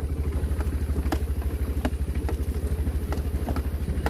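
Vehicle engine running steadily with a deep, fast-pulsing hum, while sharp clicks and rattles sound every half second or so.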